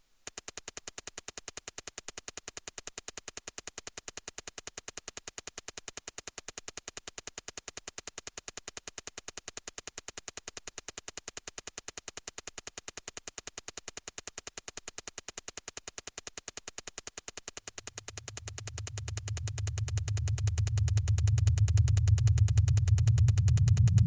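Live electronic music: a fast, perfectly even train of sharp digital clicks. About three-quarters of the way through, a low synthesized bass drone swells in and grows loud.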